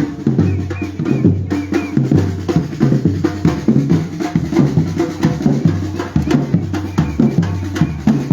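Batucada street percussion group playing a steady, driving rhythm on bass drums and snare drums.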